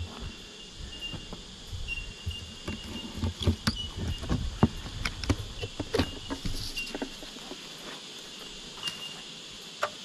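Metal clicks and rattles of a ratchet tie-down strap being worked loose on a wooden hive lid, many quick clicks through the first seven seconds, then only a few. A steady high insect drone runs underneath.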